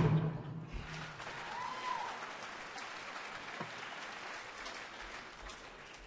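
Audience applause just after a drumming passage ends: the last drum stroke rings out, then the clapping slowly dies away.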